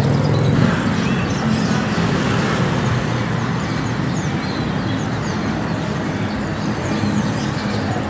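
Busy street-market din: a steady low rumble of road traffic under many small caged birds chirping throughout.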